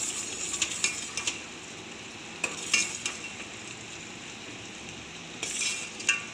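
Sugar syrup with saffron bubbling at the boil in a steel pot, as a metal spatula and ladle stir it, scraping and clinking against the pot's sides a few times.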